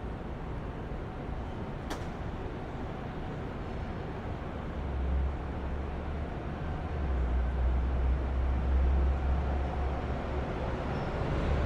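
City side-street traffic ambience: a steady hum of traffic with a single sharp click about two seconds in, then a vehicle's low engine rumble that builds from about five seconds in and grows louder.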